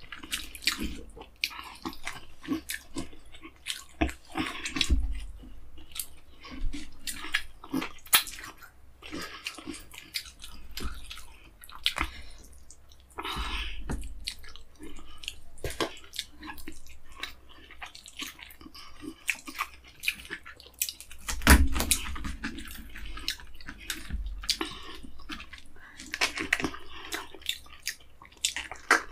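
Close-miked messy eating by hand: wet chewing and lip-smacking, with fingers squelching through egusi soup and pulling apart soft cooked fish. It comes as a steady run of irregular wet clicks and smacks, with a few heavier thumps.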